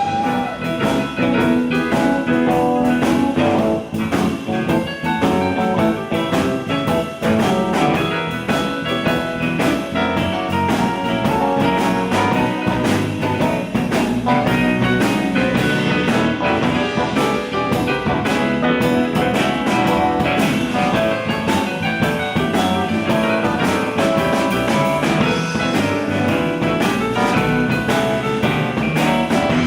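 Live blues band playing an instrumental passage without vocals: guitar over a steady drum kit beat.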